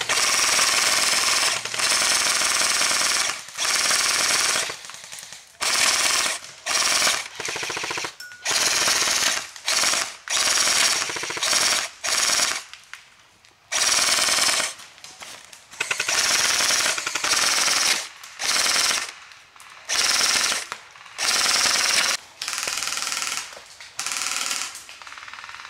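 Airsoft rifles firing full-auto, a rapid rattle of shots in about twenty short bursts, each from a fraction of a second to over a second long, with brief pauses between them.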